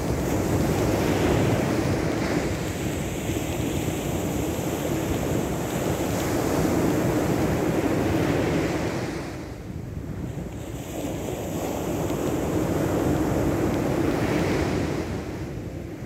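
Sea surf washing onto a beach, the rushing noise swelling and easing as the waves come in, with wind buffeting the microphone.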